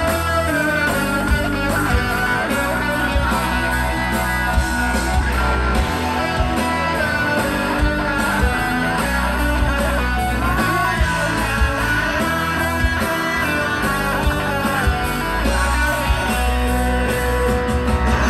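Rock band playing live through the hall's PA: electric guitars, bass and drums with a steady drum beat and a bending lead line, heard from the audience.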